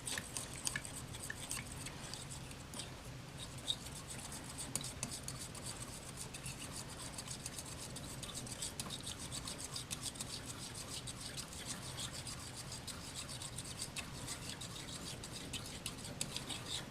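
Faint scraping and rubbing of glue being handled in its cup and bottle, with many small clicks throughout, over a low steady hum.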